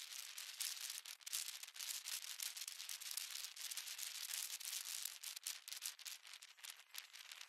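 Wind rushing over the microphone of a rider on a moving electric unicycle: a steady, scratchy hiss broken by many small crackles, with hardly any low rumble.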